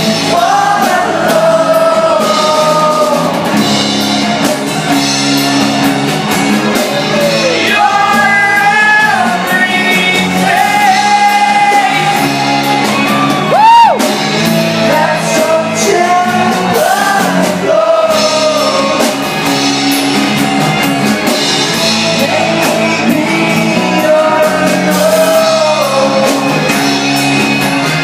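Live acoustic rock band: a male singer sings over acoustic guitars, with a brief loud yell about halfway through.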